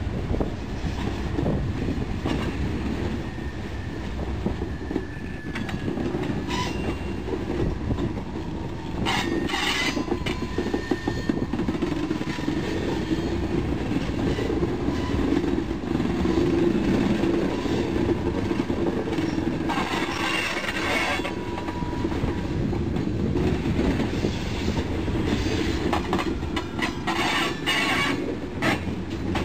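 Loaded freight cars, tank cars and then gondolas, rolling past close by: a steady low rumble of steel wheels on rail with irregular clicks and knocks, and a faint wheel squeal at times.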